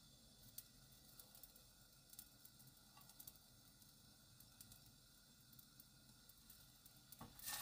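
Near silence with faint, scattered small clicks of handling. Near the end, hot cooking oil in a frying pan starts to sizzle as the stuffed shiitake mushrooms go in.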